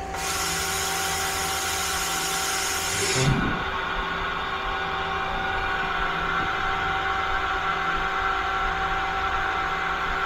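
Mazak CNC lathe running with a steady whining hum. A loud hiss sits over it for about the first three seconds, then cuts off suddenly.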